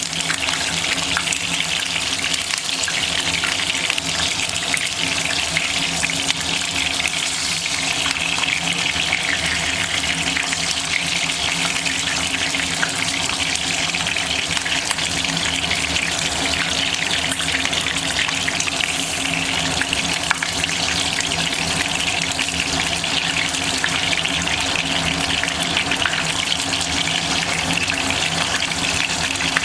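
Stuffed capsicums frying in hot oil over a high flame: a steady, dense sizzle full of fine crackles.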